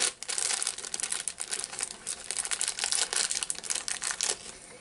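Plastic snack bag being crinkled and folded in the hands: a dense, loud crackle that starts abruptly and dies away near the end.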